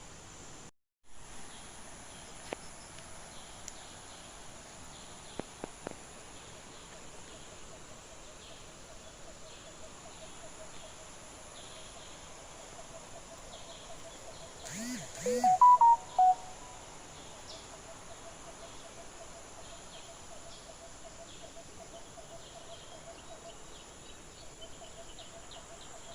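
Garden ambience of insects buzzing steadily, with small birds chirping faintly throughout. About two-thirds of the way through comes a brief, louder burst of calls.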